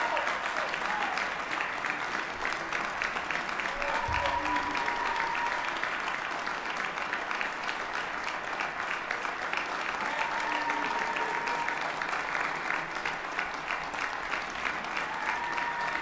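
Audience applauding steadily after a brass band performance, with a few drawn-out cheers rising above the clapping.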